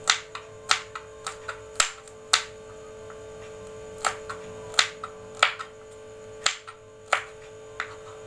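Kitchen knife slicing red chillies on a wooden cutting board: about a dozen sharp knocks of the blade on the board at uneven intervals, with a short pause a little before the middle. A steady hum runs underneath.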